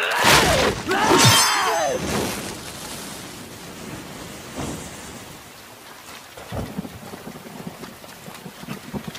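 Anime fight sound effects: a demon's snarling scream and a sword slash in the first two seconds, the slash ringing briefly. After it, a steady hiss slowly dies away.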